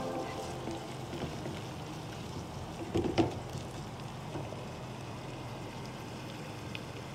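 Chopped onion, garlic and ginger sizzling in oil in a nonstick pan as a wooden spatula stirs them, with a pair of louder spatula scrapes about three seconds in.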